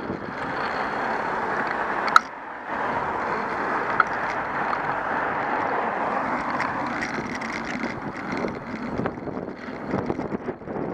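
Wind on the microphone and tyre and road noise of a bicycle riding along a city street, with two sharp clicks, about two and four seconds in.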